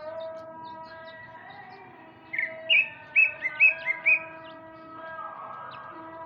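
Male greater green leafbird (cucak ijo) singing: a quick run of about seven loud whistled notes starting a couple of seconds in, over steady held tones and faint short high chirps.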